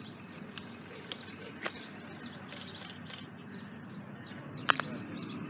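Small birds chirping repeatedly, a few short high chirps a second, over a steady low background hum. A single sharp click about four and a half seconds in.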